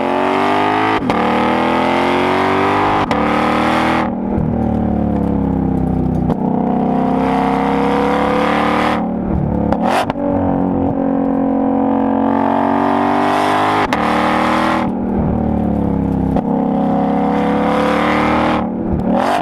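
2020 Ford Mustang Shelby GT500's supercharged 5.2-litre V8 under repeated hard acceleration. The note rises in pitch through each pull and falls back each time the throttle comes off, about four times. A few brief sharp cracks sound between pulls, the loudest about ten seconds in.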